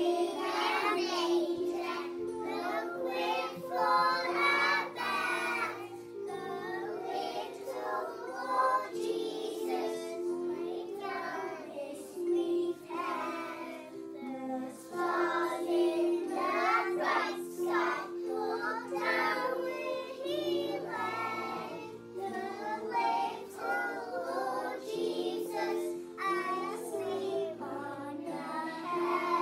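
A group of young children singing a Christmas song together over a steady instrumental accompaniment.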